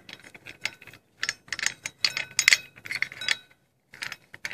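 Metal clicking and clinking as a steel swing piece is screwed by hand onto an angle grinder's spindle inside a rock-crusher housing: a string of irregular clicks, some ringing briefly.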